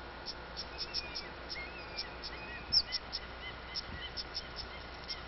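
Birds and insects chirping: short high chirps come irregularly several times a second, with softer gliding chirps lower down and one louder chirp about halfway through, over a steady hiss.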